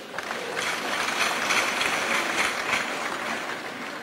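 Audience applauding in a hall, swelling within the first second, holding, then dying away toward the end.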